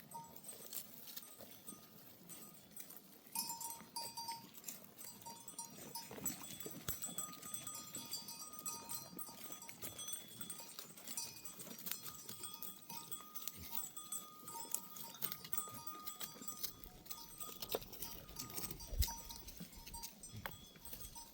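Livestock bells on a flock of sheep and goats clinking and ringing irregularly, with scattered small clicks and taps.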